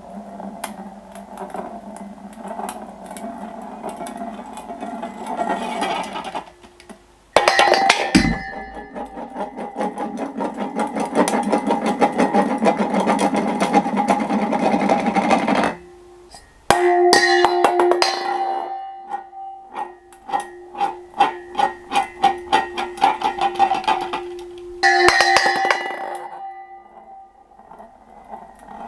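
Tin bowl scraping and rattling on a hard floor in several runs of fast clatter, its metal ringing on a few steady tones. It strikes sharply about a quarter of the way in, and again about halfway, where the ringing rings on through a wobbling clatter that comes in quick pulses.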